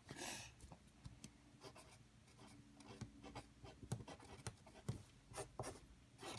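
Hands working a batch of slime, giving a soft rustle at the start and then faint, scattered little clicks and pops.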